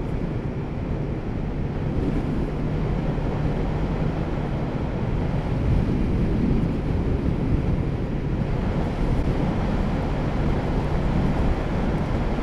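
Kawasaki Z650RS parallel-twin engine running at a steady cruise, mixed with wind rushing over the microphone.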